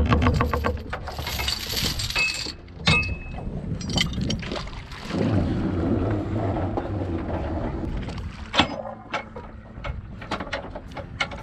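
Anchor gear being handled at a fibreglass boat's bow anchor locker: a rattle of metal clinks at first, then a brief squeal about three seconds in. After that come a stretch of rope rubbing and rushing, a sharp knock near nine seconds, and scattered light clicks.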